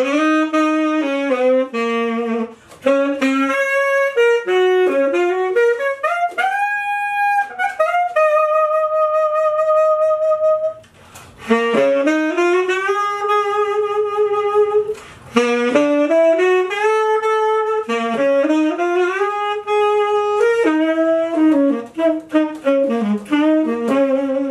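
Tenor saxophone playing a single melodic line, with quick runs and a glide up to a high held note about seven seconds in. A long held note follows, then a short break near eleven seconds before the phrases go on.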